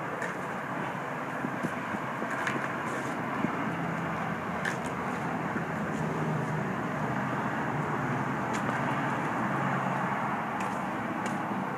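Steady noise of road traffic, swelling slightly in the middle as a vehicle passes, with a few small ticks.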